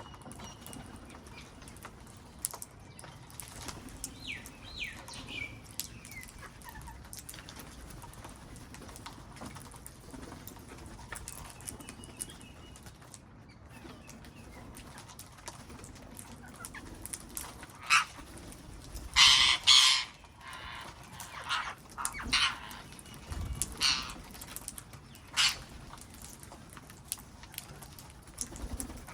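Wild parrots calling. A few short, falling chirps come a few seconds in, then loud harsh squawks about two-thirds of the way through, followed by a string of shorter calls.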